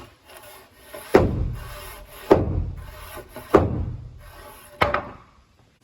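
Four heavy thuds about a second and a quarter apart, each with a booming low tail.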